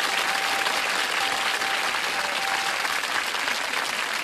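Studio audience applauding steadily after a contestant guesses the password correctly.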